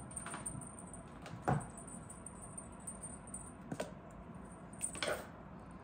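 Kittens playing: four light knocks and clicks, the loudest about one and a half seconds in, over quiet room noise with a faint high steady whine that stops about five seconds in.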